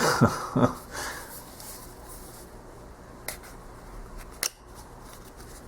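Hands opening and handling a cardboard tarot-card box and its packaging: a second of rustling and squeaky scraping, then quiet handling broken by two sharp clicks.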